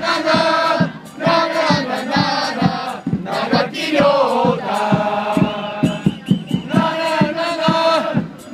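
Football supporters singing a chant together in unison, in phrases a second or two long, with a drum beating steadily under the singing.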